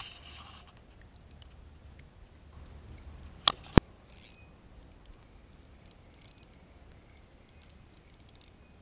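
Two sharp clicks of fishing gear handled on a kayak, about a third of a second apart, about three and a half seconds in, followed by faint scattered ticking and patter.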